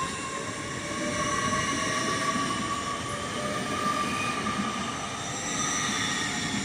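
Class 800 Inter-City Express train accelerating away, a steady whine of its drive rising slightly in pitch over rumbling wheel and rail noise.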